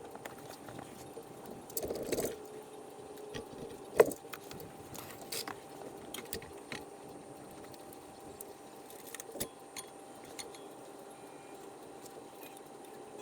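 Scattered metallic clinks and clicks of hand tools and parts being handled, with a cluster of rattling about two seconds in and one sharp knock about four seconds in, over a faint steady hum.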